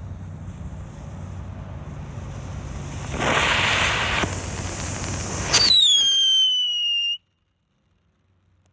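Tractor-shaped ground novelty firework burning: a steady hiss as it smokes, a louder hissing spray of sparks about three seconds in, then a loud whistle falling in pitch that cuts off suddenly.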